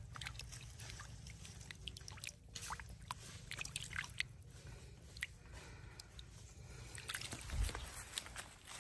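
Shallow stream water splashing and dripping as a hand swishes an egg back and forth under the surface, a patter of small irregular splashes. A dull low bump comes near the end as the egg is lifted out.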